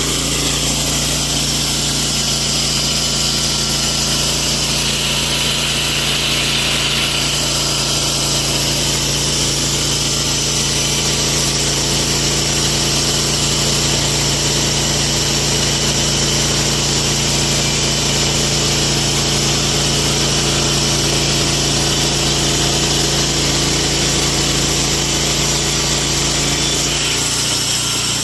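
Vallee Big Red sawmill running steadily while sawing a log, its engine holding an even note under the hiss of the blade in the wood; the hiss brightens for a few seconds early in the cut.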